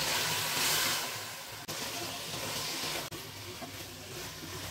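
Marinated mutton sizzling in hot oil with browned onions in a non-stick pan as it is stirred with a wooden spatula, at the start of dry-frying (kosha) the meat in its spices. The sizzle is louder for about the first second, then settles quieter.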